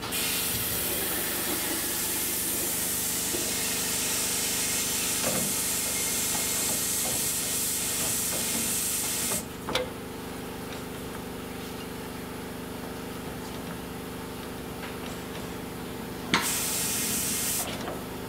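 Compressed air hissing steadily from a valve seat and guide machine's air float while the workhead is slid into position over a valve guide. The hiss cuts off with a click after about nine seconds and comes again for about a second near the end, over a steady machine hum.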